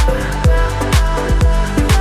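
Background music with a steady deep beat, about two beats a second, over sustained synth tones.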